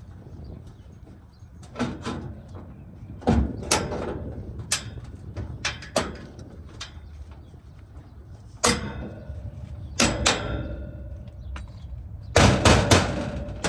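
Sheet-metal knockout in a rooftop HVAC unit's cabinet being struck and pried out: a series of separate sharp metal clanks, some ringing briefly, with a quick run of strikes near the end. The knockout is stiff and hard to break free.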